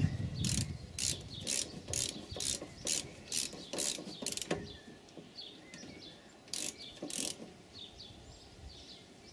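Ratchet clicking as it tightens a rear brake caliper slide-pin bolt, about two clicks a second for some four seconds, then two more clicks after a pause.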